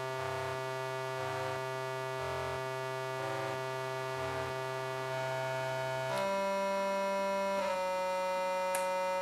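Circuit-bent Yamaha PSS-30 toy keyboards (two rehoused as one instrument) holding buzzy sustained notes from both manuals. A low drone holds steady while short higher notes switch on and off about once a second; the chord changes about six seconds in and again near eight seconds.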